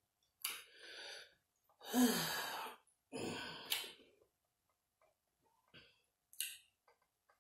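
A person breathing out and sighing while eating, in three breathy bursts; the loudest, about two seconds in, carries a short falling hum. Two brief sharp mouth clicks come later.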